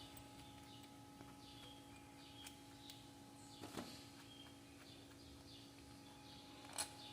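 Near silence: faint birds chirping in the background over a low steady hum, with a few light clicks, the loudest one near the end.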